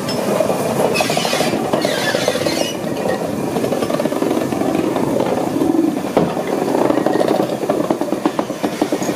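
LMS Fowler 4F 0-6-0 steam locomotive No. 43924 rolling slowly past at close range, its wheels and motion clattering and knocking steadily. A high squeal comes twice in the first three seconds.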